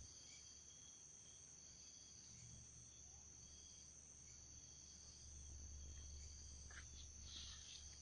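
Faint night chorus of crickets and other insects, a steady high-pitched trilling with a pulsing chirp under it, and a few faint rustles near the end.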